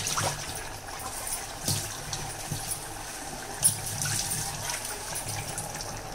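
Washed dried fish pieces dropped by hand into simmering tamarind gravy. Several wet plops and splashes, the loudest nearly four seconds in, over the bubbling gravy.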